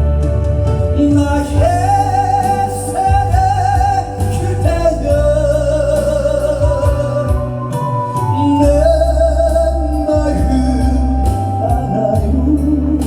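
Korean trot song played on a backing track, its melody carried in long, wavering held notes over a steady bass line.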